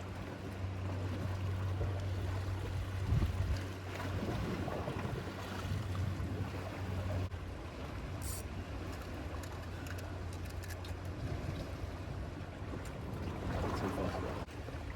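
Wind buffeting the microphone over waves washing against the breakwater, with a steady low hum through the first half and a few light clicks later on.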